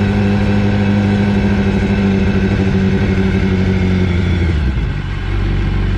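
BMW motorcycle engine running steadily, its note shifting lower with a brief dip about four to five seconds in.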